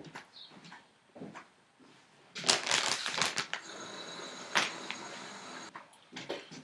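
A plastic marshmallow bag crinkling loudly for about a second, followed by a steady hiss with a sharp click in the middle.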